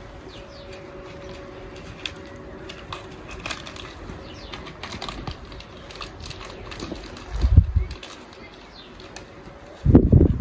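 Outdoor ambience with faint bird chirps and light rustling, a low thump about seven and a half seconds in, and wind buffeting the microphone near the end.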